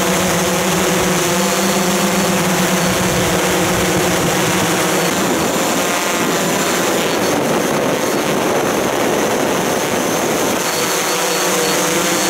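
Multirotor drone's electric motors and propellers running, a steady buzzing hum with a high hiss, recorded from on board. From about five seconds in the pitch wavers and turns rougher as the motors change speed, then settles back to a steady hum near the end.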